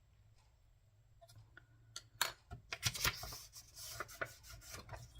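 Paper being handled on a work surface: sheets sliding and rubbing, with several sharp taps and clicks, starting about two seconds in.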